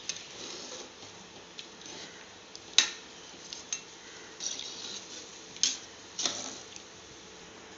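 A perforated metal spoon stirring soaked rice into watery chicken gravy in an aluminium pressure cooker. It knocks and scrapes against the pot several times with sharp clinks.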